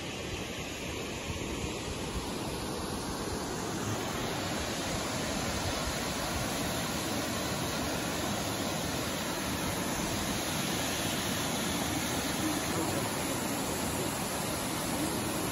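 Aguasabon Falls, a waterfall, rushing steadily as a broad, even noise that grows a little louder over the first few seconds.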